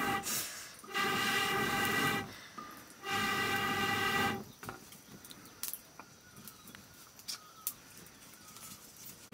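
A horn sounding long, steady, even blasts: the tail of one right at the start, then two more of over a second each, about two seconds apart. After these, faint scattered crackles from the wood fire.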